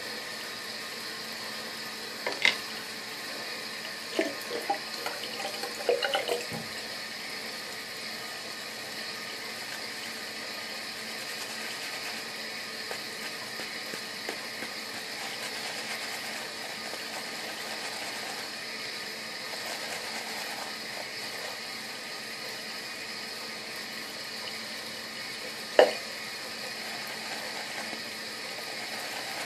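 Shaving brush working Proraso shaving cream into a lather in a wet palm: a steady wet hiss, broken by a few short knocks from handling the brush, the loudest near the end.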